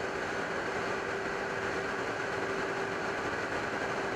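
Steady drone of aircraft engines and rushing air heard from inside an aircraft flying in formation, with a faint steady hum and no change in pitch.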